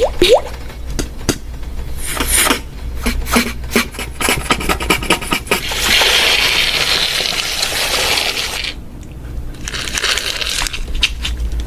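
Beatboxer's mouth-made imitation of cooking sounds: a quick run of clicks and taps, then a steady hiss for about three seconds, a short pause, and more hissing and clicks near the end.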